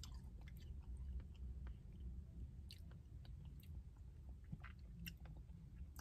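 Faint chewing and small wet mouth clicks of someone eating soft-serve ice cream with cookie pieces, over a low steady hum.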